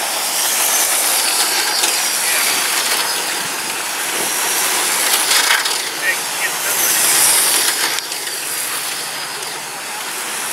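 Electric R/C racing trucks with 17.5-turn brushless motors running laps on a concrete oval: a steady high-pitched hiss and whine of motors, gears and tyres, swelling briefly about seven seconds in.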